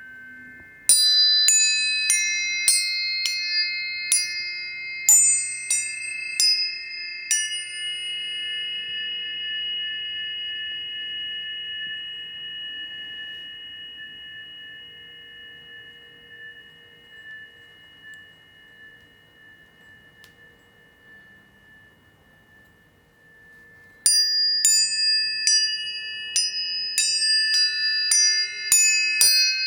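Tuning forks struck in quick succession, about ten strikes over six seconds, leaving several high, clear tones ringing together that slowly fade away. About 24 seconds in, a new run of strikes brings the ringing back up.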